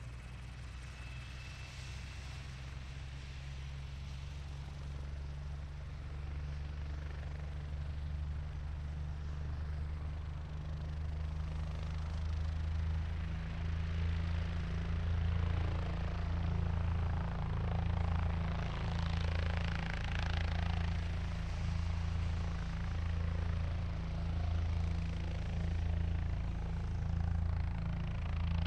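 Helicopter running up, its engine and rotor growing gradually louder. From about halfway through, a steady rhythmic rotor beat of roughly one pulse a second comes in, with a noisy swell of higher sound in the middle.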